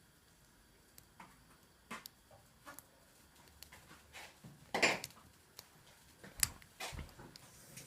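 Faint, scattered metallic clicks and scrapes of a hook pick and tension wrench working the pins of a Zone six-pin euro cylinder lock, with a louder scrape about five seconds in and a sharp click shortly after.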